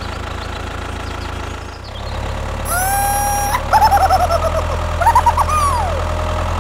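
A steady low tractor-engine drone runs underneath throughout. From a little under halfway in, a few loud, high squeaky cartoon-like sounds come over it: one held tone, then wobbling chirps and a final falling glide.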